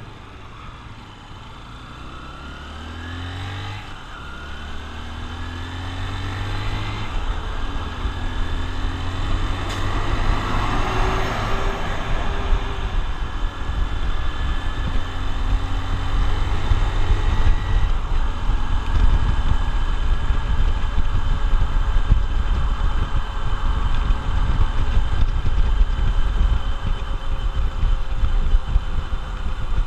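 Honda XR150L's single-cylinder engine accelerating up through the gears, its pitch climbing and dropping back with each shift and growing louder, then running steadily at speed with a loud low rumble.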